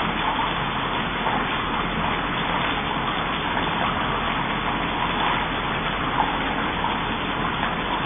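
Steady rushing noise, even throughout, with no distinct sounds standing out.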